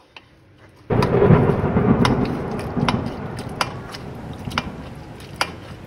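Semolina halwa sizzling in hot ghee as a spoon stirs it, with sharp clicks of the spoon against the metal pan. The sizzle starts abruptly about a second in, loudest at first, and slowly dies down.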